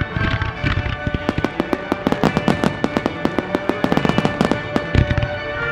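A starmine fireworks barrage with music playing throughout: a fast run of sharp cracking reports, several a second, through the middle, and a heavy low boom near the end.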